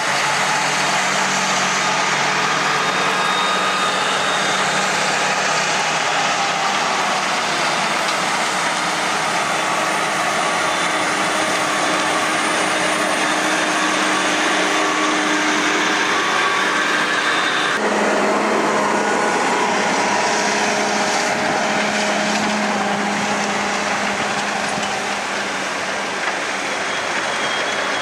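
Diesel engines of a John Deere 8310R and a New Holland T7.315 tractor (both six-cylinders) running steadily under load while each pulls a plough through the soil. The sound changes suddenly about two-thirds of the way through.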